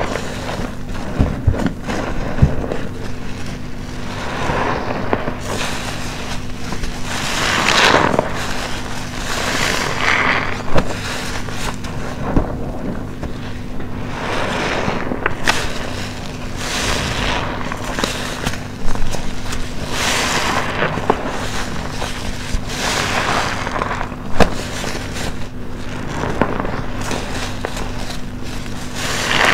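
A soap-soaked sponge squeezed by hand again and again, every two or three seconds: wet squelching with crackling pops of foam and bubbles.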